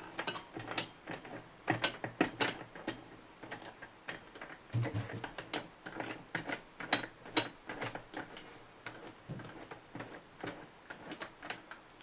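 Irregular metallic clicks and ticks as the plated metal drive wheel of a cheap direct-entry combination safe lock is turned by hand, unscrewing it off its threaded spindle.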